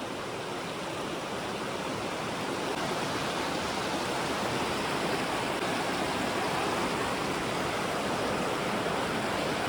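A mountain river rushing over rocks: a steady rush of water that grows a little louder over the first few seconds.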